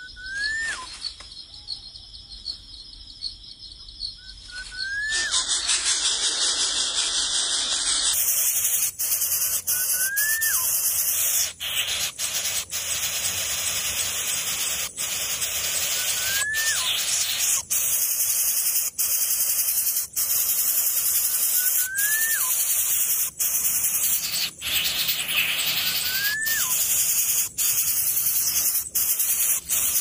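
Steady, loud high-pitched insect drone that swells up about five seconds in. Through it a short call that rises then drops repeats every five seconds or so, with scattered clicks.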